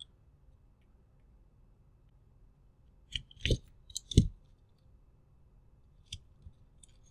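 Small tools and RC car chassis parts handled on a workbench: a quick cluster of sharp clicks and knocks about three to four seconds in, then a couple of light clicks near the end.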